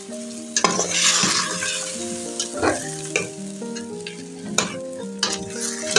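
A spoon stirring in a pot of unripe plantain cooking in palm oil and water, with a burst of sizzling about a second in and several sharp knocks and scrapes against the pot after it. Soft background music with held notes plays underneath.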